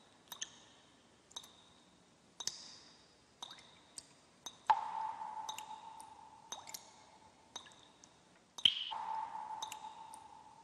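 Sparse background music of short, high plinking notes about once a second, each with a brief ring. Twice, a longer, lower note rings out and fades slowly.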